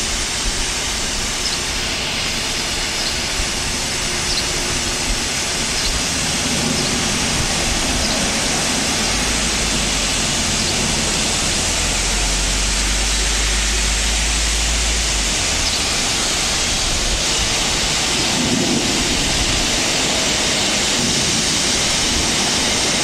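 Automatic gantry car wash spraying water jets over a car: a steady hiss of spray. A low rumble joins in for several seconds in the middle.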